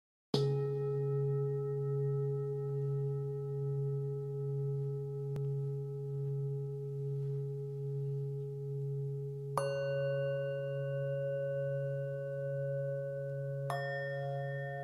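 Struck singing bowls ringing with long, slowly wavering tones. A bowl is struck just after the start, another about ten seconds in, and a third near the end, each adding higher tones to the ringing.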